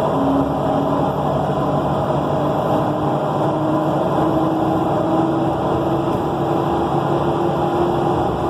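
Nova Bus LFS articulated city bus under way, heard from inside: a loud steady rumble with a whining tone that climbs slowly and smoothly in pitch. The bus is one its rider says makes a loud, ear-hurting screeching noise.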